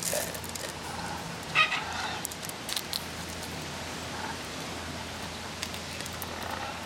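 One short bird call about one and a half seconds in, over scattered light clicks and taps of a macaw's beak at a plastic seed feeder.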